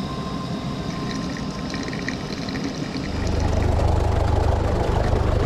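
Coffee pouring from a French press into a vacuum flask, then a boat engine idling with a steady low rumble that comes in about three seconds in.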